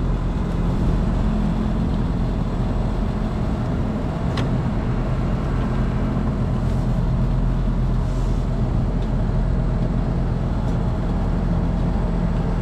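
Steady low mechanical drone of machinery running, with a few faint clicks from parts being handled, the sharpest about four seconds in.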